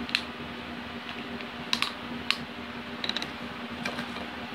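Plastic water bottle being handled and its screw cap twisted: a handful of sharp plastic clicks and cracks, two close together near the middle and a quick cluster a little after, over a low steady hum.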